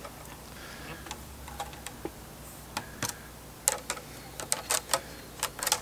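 Willow rods clicking and tapping against the upright willow ribs as they are woven round by hand: light, irregular clicks that come thicker in the second half.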